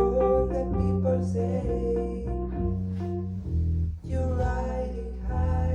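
Live band rehearsal music: an instrumental passage between sung verses, with a steady bass line under shorter pitched notes and a brief break about four seconds in.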